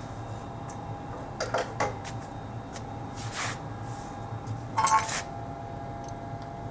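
Metal parts and tools clinking and knocking a few times as a press is being taken apart, the loudest a clank with a short ring about five seconds in, over a steady hum.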